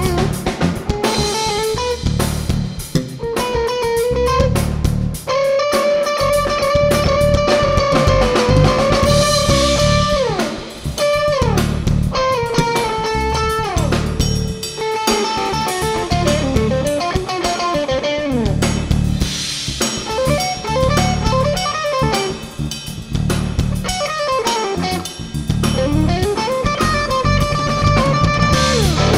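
Stratocaster-style electric guitar playing a melodic solo over a drum kit: long held notes with vibrato, and several slides down in pitch in the middle and a swoop down and back up near the end.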